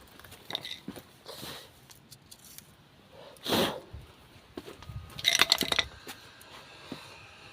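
Engine parts being handled: a few small clicks, a short scrape about three and a half seconds in, then a brief clattering rattle a little after five seconds.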